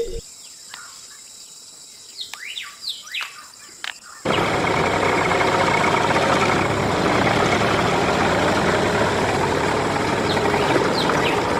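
Birds chirping for about four seconds, then a loud, steady engine noise starts abruptly, as of a tractor running, with a few chirps still heard over it.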